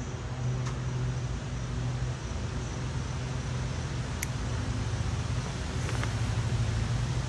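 Three short, sharp snips of bonsai scissors cutting dawn redwood fronds, over a steady low mechanical hum.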